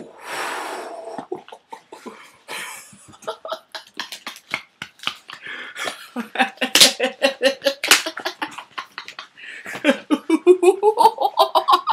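A cardboard package being torn open, a fast run of sharp ripping and rustling crackles, with excited vocal noises, and a man laughing in quick bursts near the end.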